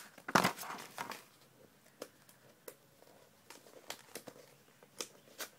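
Handling noises: a louder rustle about half a second in, then scattered light clicks and taps.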